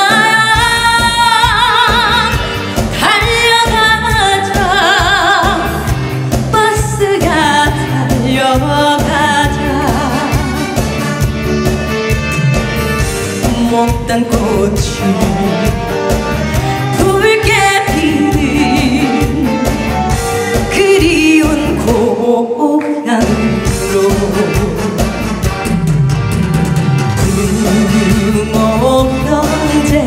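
A woman singing a Korean trot song into a handheld microphone, her voice wavering with vibrato, over a band backing with a steady beat. The backing drops out for about a second roughly two-thirds of the way through.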